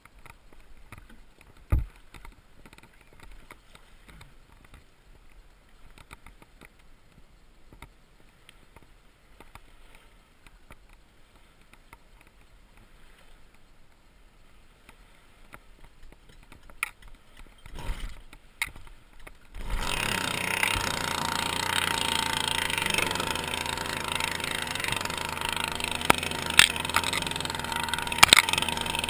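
Petrol engine of an RC model powerboat catching about two-thirds of the way in and then running steadily, after a stretch of quiet with a few faint knocks.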